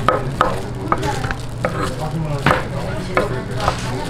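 Large kitchen knife slicing through sundae (Korean blood sausage) on a wooden cutting board, the blade knocking on the board in irregular sharp strokes about two or three times a second.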